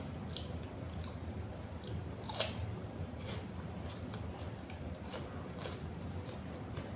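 Close-up crunching and chewing of crisp raw vegetables. Scattered sharp crunches are heard over a low hum, with the loudest about two and a half seconds in.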